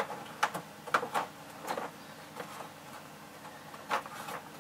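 Thermostat wire being fished out through a light-switch opening in a wall panel: a series of short scrapes, rustles and clicks of wire and fingers against the wall and switch box, several in the first two seconds and two more about four seconds in.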